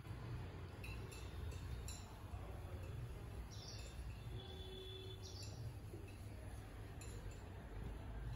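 Quiet outdoor background: a steady low rumble, a few faint ticks about a second in, and faint high chirps near the middle.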